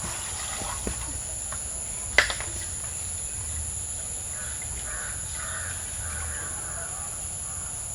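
A bird calls several times in a row in the second half, with a single sharp knock about two seconds in and a steady high-pitched whine underneath.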